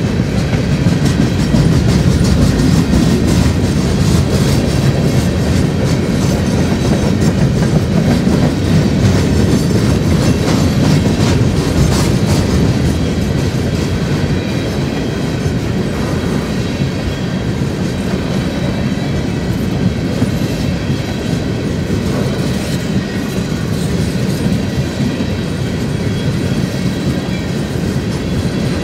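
Empty coal train's cars rolling past at speed, a steady rumble with the wheels clacking continuously.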